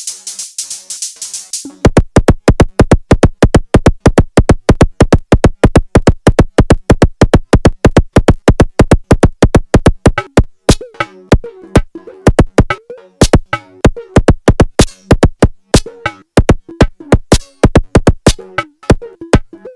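Korg Volca Drum pattern run through a Bastl Kastle 2 FX Wizard: a fast, even run of sharp electronic hits, about five a second. About halfway in the pattern turns irregular, with gaps and a short wavering tone between hits.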